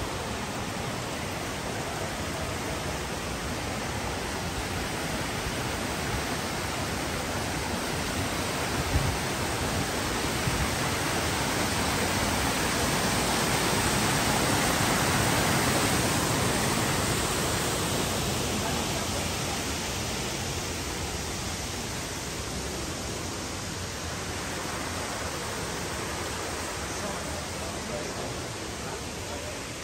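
Mountain stream cascading over rocks: a steady rush of water that grows louder about halfway through as a small waterfall is passed close by, then fades again. One short knock about nine seconds in.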